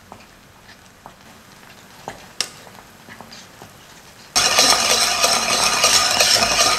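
Thick caramel bubbling in a saucepan, with a few faint pops and ticks. About four seconds in, a much louder wire whisk starts, stirring and scraping briskly through the thick caramel in the pan.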